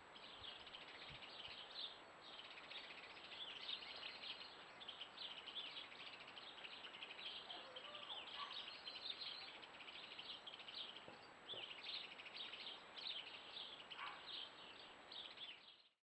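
Small garden songbirds twittering continuously, a faint, fast high chatter with a few lower call notes mixed in.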